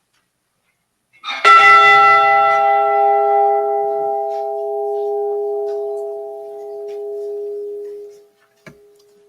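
A single stroke of the Edmund Fitzgerald's recovered bronze ship's bell, tolled for a lost crewman as his name is called. The bell is struck once about a second and a half in and rings with several clear tones, the higher ones dying away first. It fades slowly over about seven seconds, leaving one low hum, and there is a small click near the end.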